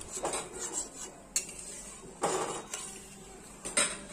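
A spoon stirring curry in a metal pan, scraping and knocking against the pan several times, the loudest knock near the end.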